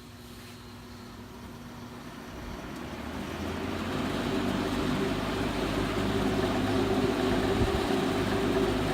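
Vintage Arctic Air box fan with a Fasco motor spinning up to high speed. The motor hum and rush of air build over about four seconds, then run steadily. The motor still makes bearing noise that the owner doesn't like, but the refitted grilles don't rattle.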